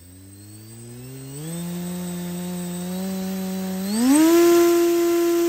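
Surpass C2204 brushless outrunner motor spinning a 3D-printed 6x5.5 folding propeller on a thrust test stand, its hum rising in pitch in steps as the throttle is opened. The biggest and loudest rise comes about four seconds in, after which it holds a steady, higher pitch.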